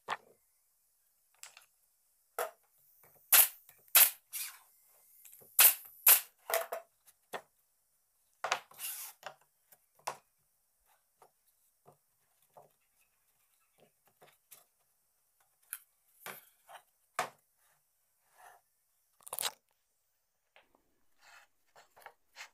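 Irregular sharp knocks and clicks of small wooden parts being handled and fitted together, with quiet gaps between them. The loudest are a cluster of hard taps about three to seven seconds in, and lighter clicks follow.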